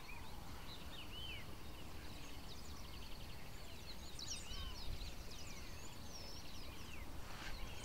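Faint chorus of wild birds: many short chirps and whistles scattered throughout, over a low steady background rumble.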